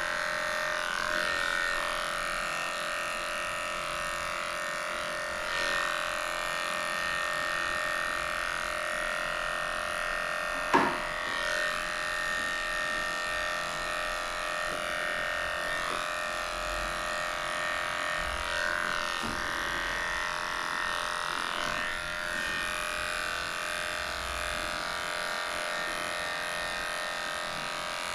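Cordless electric dog-grooming clipper running steadily, its blade shaving through a dog's matted coat, with one sharp click about eleven seconds in.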